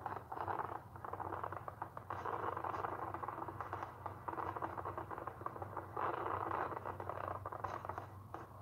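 Fireworks crackling and popping in a dense, continuous barrage, heard thin and muffled through a television's small speaker. A steady low hum runs underneath.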